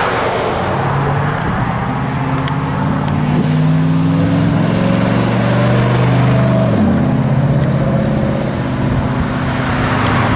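Engine and exhaust of a 1957 Chevrolet Bel Air accelerating away from a standstill, its pitch climbing steadily. About two-thirds of the way through the pitch drops abruptly as it shifts up, and it pulls on at a lower, steadier note.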